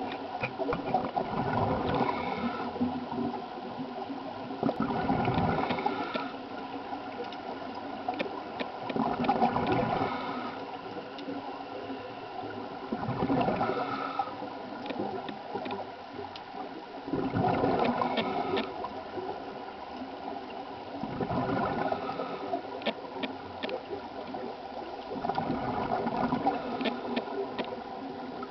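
Scuba diver breathing underwater through a regulator: a gurgling burst of exhaled bubbles about every four seconds, with quieter spells between.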